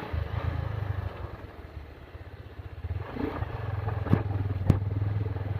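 Motorcycle engine running steadily at low revs, a low even throb that dips about two seconds in and picks up again a second later. Two sharp clicks sound near the end.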